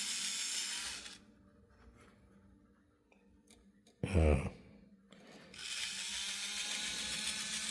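Small electric motor of an HO-scale 0-10-0 steam locomotive running with a steady whir. It stops about a second in and starts again about five and a half seconds in, with a short voiced sound just after four seconds. The motor keeps spinning while its worm gear slips against the large drive gear.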